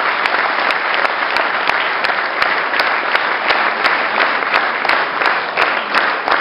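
Audience applauding steadily, dense clapping with a few close individual claps standing out.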